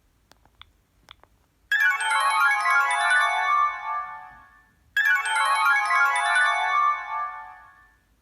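Preloaded Sony Ericsson C510 ringtone: a bright run of quick notes that plays twice, each pass lasting about three seconds and fading out. A couple of faint clicks come before it.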